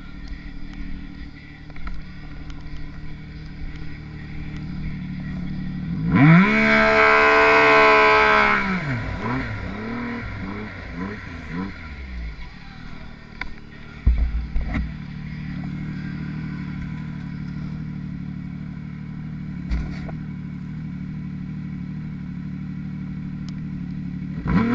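Yamaha SRViper snowmobile's four-stroke three-cylinder engine running through deep powder. It revs hard about six seconds in and holds high for about two seconds before falling back, then runs steadily at low speed, with a few short knocks along the way. It revs up again right at the end.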